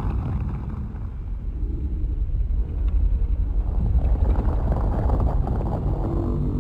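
Giant-monster film sound effect: a loud, deep, dense rumble that swells and grows brighter about four seconds in.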